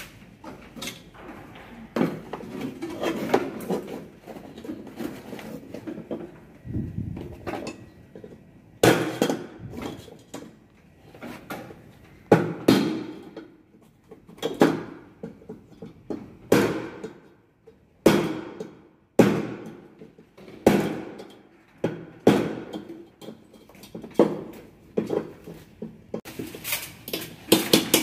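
Sharp knocks and clanks, one every second or two, then a quick run of rapid taps near the end.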